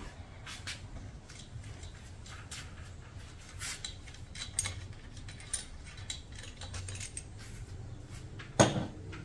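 Small metallic clicks and clinks as steel camshafts are handled and set into the journals of an aluminium cylinder head, with one sharper knock near the end.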